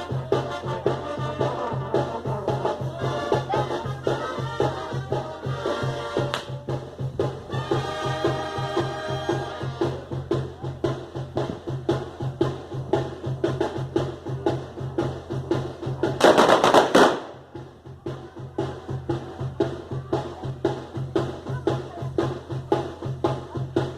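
Festive band music: wind instruments playing a melody over fast, steady drumming, the melody dropping out after about ten seconds and the drumming carrying on alone. About sixteen seconds in, a loud hissing blast lasting about a second cuts across the music.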